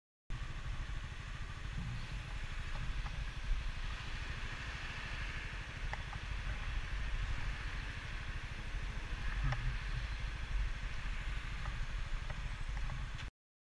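Kuba Superlight 200 motorcycle running at low speed, a steady low rumble with hiss and a few faint clicks, heard through a helmet-mounted camera's microphone. It cuts in just after the start and cuts off abruptly near the end.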